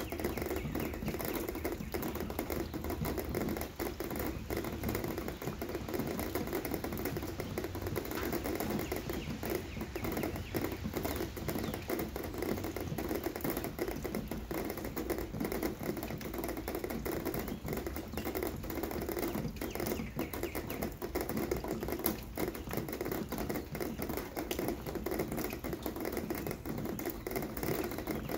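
Rain falling steadily, a dense, even patter of many small drops striking a hard surface.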